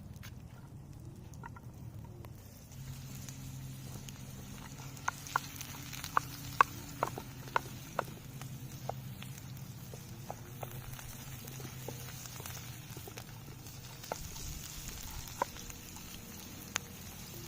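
Campfire crackling: a run of sharp, irregular pops, most of them between about five and eight seconds in and a few more near the end, over a low steady hum.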